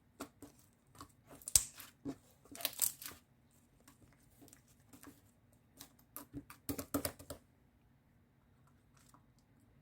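Bursts of light clicking and tapping, as of small objects being handled, with a short rustle of paper or plastic a few seconds in; it goes quiet for the last couple of seconds before a single thump.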